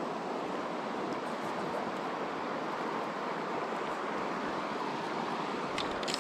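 Steady rushing of a shallow river running over a stony riffle, with a few light crackles near the end.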